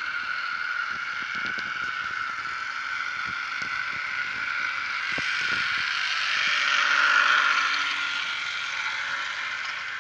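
Model electric train running on sectional track: the CC 40101 locomotive's small motor whines steadily and its wheels click over the rail joints. The sound grows louder as the train nears, is loudest about seven seconds in as it passes close by, then eases as the wagons roll past.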